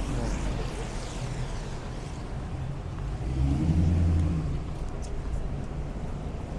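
City street traffic: a motor vehicle passes close, its low engine rumble swelling to a peak about halfway through, over a steady low hum of traffic.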